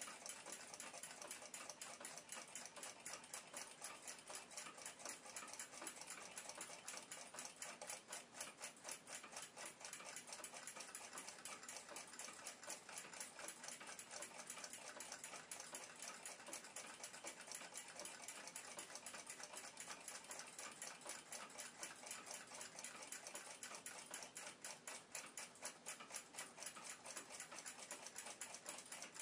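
Faint, steady, quick ticking of a mechanical clock.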